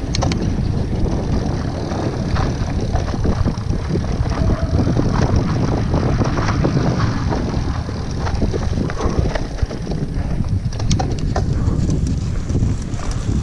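Mountain bike being ridden along a sandy forest trail: wind buffeting the microphone over a steady rumble of tyres and frame, with scattered clicks and rattles from the bike over the bumps.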